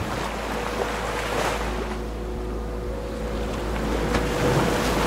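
Ocean surf washing in and breaking on the beach, with wind, swelling near the end.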